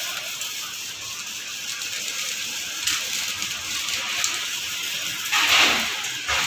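Flow wrap packaging machine running, a steady mechanical hiss and rattle with louder hissing surges a few times, the loudest about five and a half seconds in.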